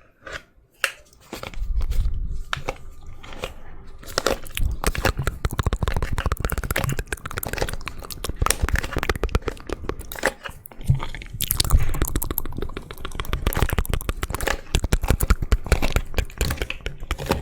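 A hairbrush dragged through hair right at the microphone: dense, crackly scratching strokes, starting after a near-quiet first second.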